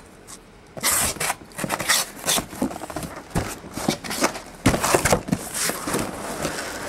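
A blade cutting and scraping through the cardboard and tape of a sealed case of card boxes, with irregular scrapes, clicks and rustling as the case is worked open.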